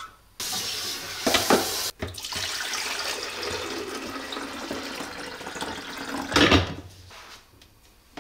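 Water running from a kitchen tap, most likely into the coffee carafe as it is filled, starting and stopping abruptly, then a couple of knocks about six and a half seconds in.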